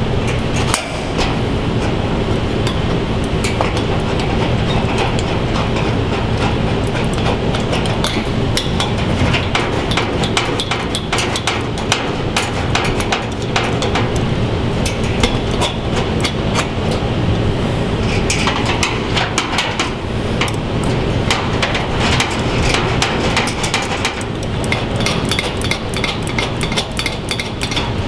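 Open-end wrench clicking and clinking against the steel clamp nuts and threaded rod as the heater's hanging clamps are snugged up, many small metallic ticks, thickest in the second half. Under them runs a loud steady mechanical hum.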